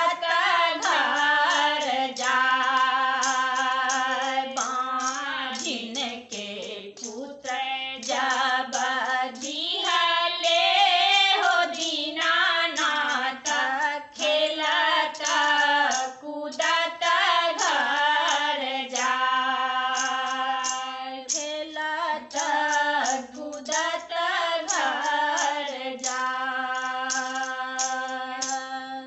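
Three women singing a Maithili Chhath geet together, with no instruments heard; the song ends near the end.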